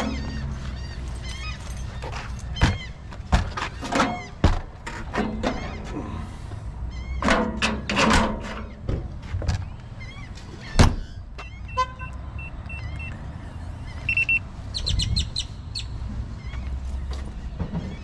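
A low steady vehicle hum under a string of knocks and clunks, with birds calling throughout and a short run of beeps about twelve seconds in.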